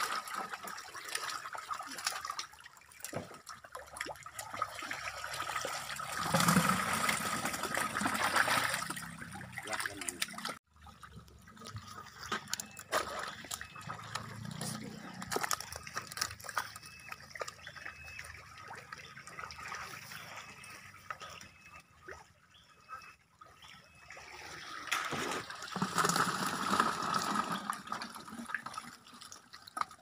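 Water splashing and trickling. It swells into louder splashing about six seconds in and again near the end, and breaks off abruptly about ten seconds in.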